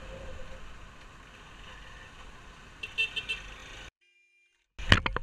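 Motorcycle riding through slow city traffic, a low steady engine and road noise, with a brief car-horn toot about three seconds in. The sound then drops out completely for about a second, and a sudden loud thump comes near the end.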